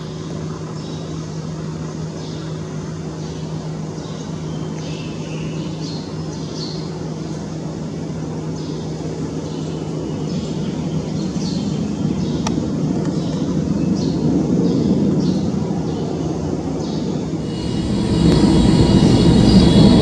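Boeing 747-400 jet engines on final approach, a steady low rumble that slowly grows louder as the airliner nears. Near the end it changes suddenly to a louder, closer rumble with a steady high whine.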